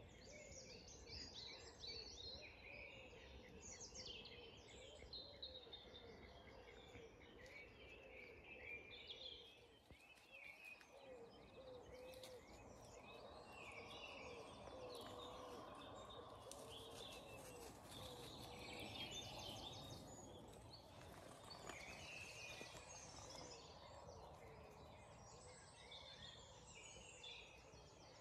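Faint birdsong from several songbirds, with many short, varied chirps and warbles overlapping throughout.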